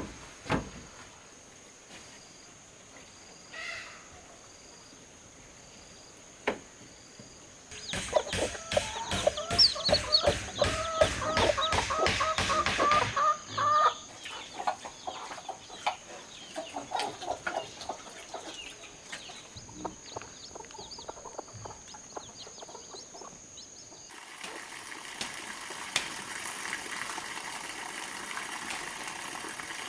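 Chickens clucking: a loud run of rapid, squawking clucks starts about eight seconds in and lasts some five seconds, followed by scattered quieter clucks. A thin steady high whine runs underneath, giving way to an even hiss after about twenty-four seconds.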